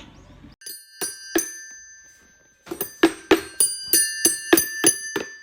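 Small bell-like chimes struck by hand, ringing at the same few fixed pitches. A few separate strikes come first, then a quicker, uneven run of about ten.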